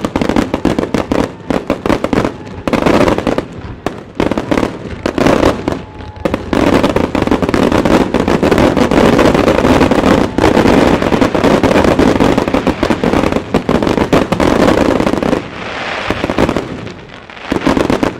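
Wide starmine fireworks barrage: a rapid, nearly continuous run of shells launching and bursting, loud bangs with crackle, easing off briefly near the end.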